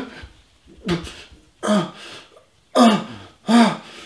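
A man's voice making four short, separate vocal sounds, like grunts or throat-clearing, each under half a second and spaced just under a second apart, with the pitch rising and falling in each.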